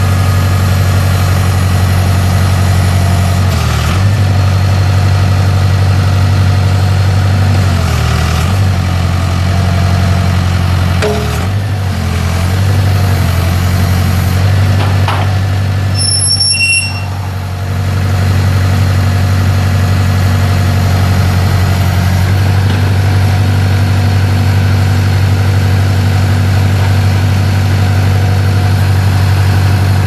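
Case 580K backhoe's four-cylinder turbo diesel engine running steadily while the backhoe boom is worked. Its low note dips briefly a few times, and there is a short lull with a few brief high chirps about halfway.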